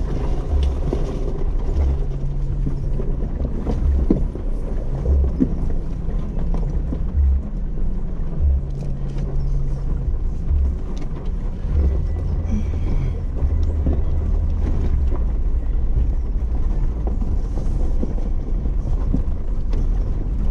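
Jeep driving slowly over a rocky dirt trail: a low, steady engine drone that shifts pitch every few seconds, with tyre noise and scattered knocks and rattles from the bumps.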